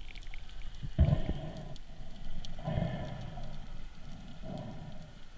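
Underwater sound picked up through a camera housing: water rushes past in three surges about a second and a half apart as the diver swims, over a faint background of scattered sharp clicks.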